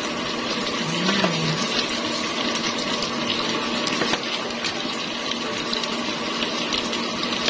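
Sweet and sour sauce bubbling and sizzling steadily in a frying pan as raw shrimp go into it, with a faint steady hum underneath.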